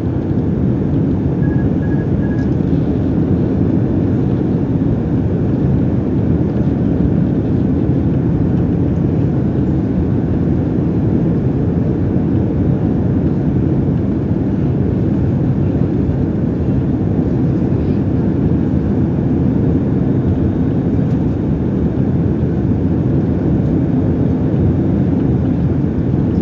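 Steady cabin noise of an airliner on its descent: an even, dense rumble of engines and rushing air, heard from inside the passenger cabin.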